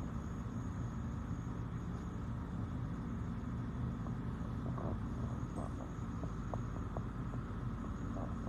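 Household humidifier running: a steady low hum with a few faint ticks in the middle.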